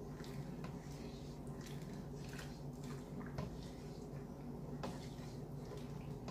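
Wooden spoon stirring rice in a saucepan of simmering water: faint swishing with scattered light taps against the pot, over a low steady hum.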